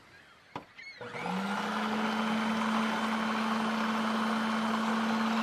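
Electric blender switched on about a second in, its motor quickly spinning up to a steady high whirring hum as it blends the dressing ingredients. A short click comes just before it starts.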